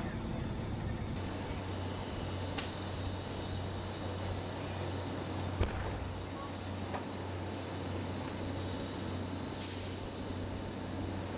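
Fire engine's diesel engine running steadily with a low hum as it drives the pump feeding a water stream, over the rushing noise of a large fire. There are a few sharp pops, the loudest about halfway through, and a brief hiss near the end.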